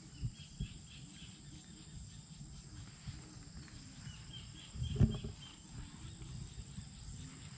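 Steady outdoor insect noise: a constant high drone with a pulsing chirp above it, over a low rumble. A single thump about five seconds in is the loudest sound.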